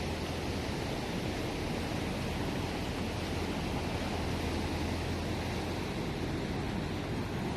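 A river swollen with floodwater, rushing with a steady, unbroken noise.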